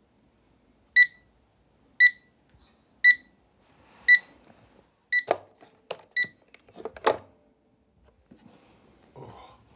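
Oregon Scientific digital alarm clock going off at 8:00 with short, high beeps about once a second. After about five seconds a hand slaps and presses the clock, giving a few loud knocks, and the beeps stop.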